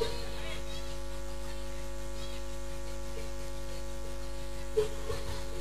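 Steady electrical mains hum and buzz, with faint crowd voices underneath and a short knock near the end.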